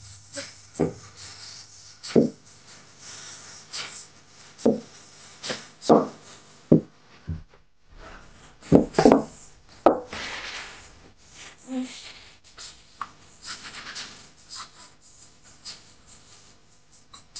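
Wooden rolling pin rolling out a sheet of pizza dough on a silicone baking mat: soft rubbing broken by irregular knocks and taps as the pin is pressed, lifted and set down.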